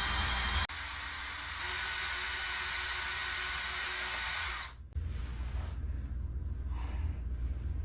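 Electric drill running steadily for about four and a half seconds, then stopping sharply. A low rumble carries on after it stops.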